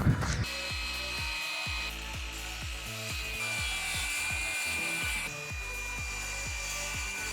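Background music with a steady beat of low thumps about twice a second and held high tones, after a brief scraping noise at the very start.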